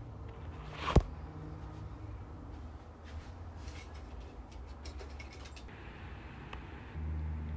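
Hands working on parts inside a desktop PC case: one sharp click about a second in, then small taps and scrapes. Near the end a steady low hum starts.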